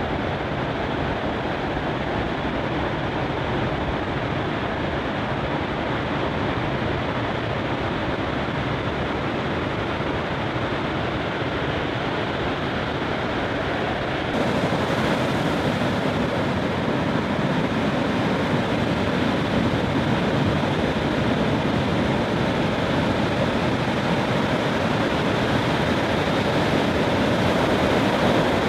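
Ocean surf: a steady rushing hiss of breaking waves. About halfway through it becomes a little louder and brighter.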